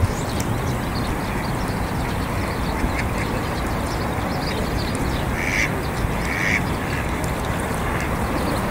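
Ducks quacking twice, two short calls about a second apart, over a steady rushing background noise.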